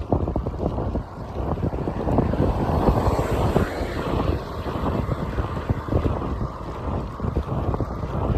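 Wind buffeting the microphone on a moving motorbike, with a steady rumble of engine and road noise underneath.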